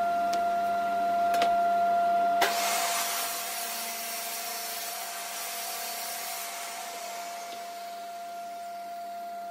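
Jobsite table saw running with a steady high-pitched motor whine while a pallet-wood slat on a straightening jig is fed through it. A rushing cutting noise from the blade comes in about two and a half seconds in and slowly eases.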